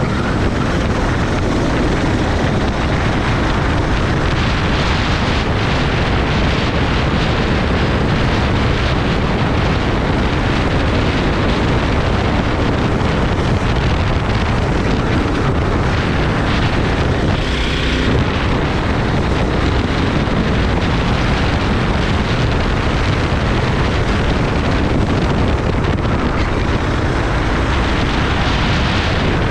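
Go-kart engine running hard under racing load, with heavy wind buffeting on the onboard microphone.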